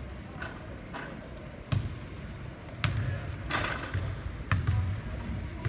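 A ball bouncing on a hardwood court: a handful of separate thuds at uneven spacing, roughly one a second, echoing in a large hall.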